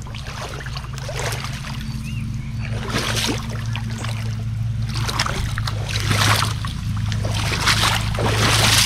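Irregular rustling and scuffing from someone moving along a brushy lake bank while handling a fish, growing somewhat louder toward the end, over a steady low hum.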